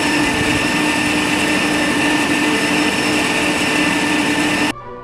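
A water-mill hydroelectric turbine set running: the vertical turbine shaft and belt-driven generator give a loud, steady mechanical noise with a constant whine. It cuts off suddenly near the end.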